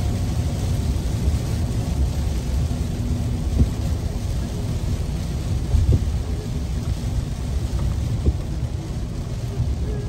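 Rain and tyre noise on a wet road heard inside a moving car's cabin: a steady low rumble, with three short thumps about two seconds apart.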